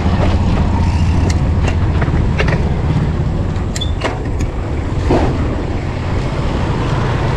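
Steady low rumble of wind and road noise on a moving bicycle's microphone, with a few sharp light clicks and knocks scattered through it.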